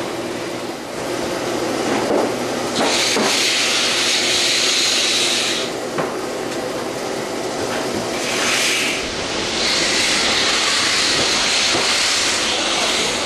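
Honey frame uncapping machine running: a steady mechanical hum with loud hissing that swells up and dies back several times, and a few knocks of frames being handled.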